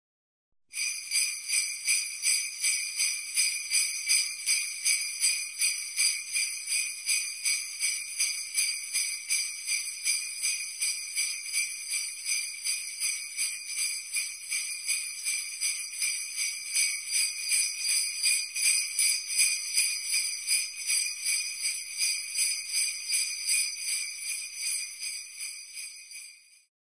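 Sleigh bells shaken in a steady rhythm, about three shakes a second. They start about a second in and stop just before the end.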